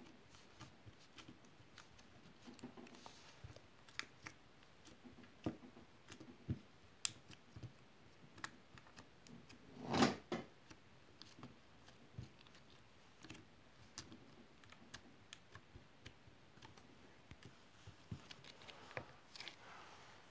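Small slime being handled: scattered soft clicks and pops, with one louder, longer squish about ten seconds in.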